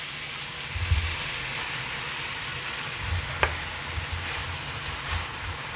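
Baby spinach, cherry tomatoes and garlic sizzling steadily in butter in a skillet as the spinach is cooked down to wilt, with a few low bumps about a second in and from about three seconds on.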